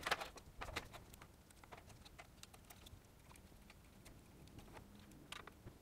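Faint scattered clicks and taps of an iPhone XS Max logic board and small parts being handled and seated in the phone's housing, a cluster in the first second and a sharper click near the end.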